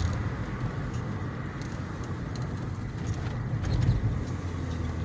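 Road noise heard from inside a car's cabin while driving on an unpaved road: the engine and tyres making a steady low rumble, with a faint rattle now and then.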